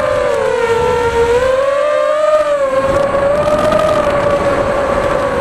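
FPV racing quadcopter's brushless motors whining in flight, the pitch dipping and then rising about two seconds in as the throttle changes. Wind rushes over the onboard microphone underneath.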